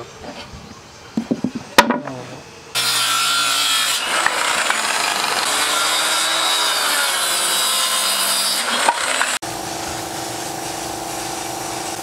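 Handheld circular saw cutting through plywood, starting about three seconds in after a few knocks of the board being handled, and stopping abruptly about seven seconds later. A quieter steady hum with a held tone follows.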